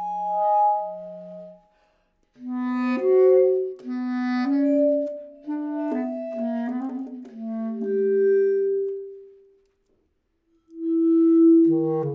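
Bass clarinet and marimba duo playing contemporary chamber music: long held bass clarinet notes alongside shorter, sharply started notes. The music breaks off twice briefly, about two seconds in and again near ten seconds.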